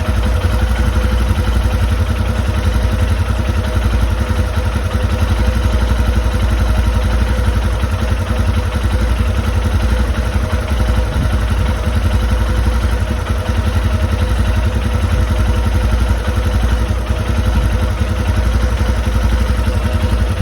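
Royal Enfield Himalayan single-cylinder engine idling steadily, with a metallic clicking running through its beat.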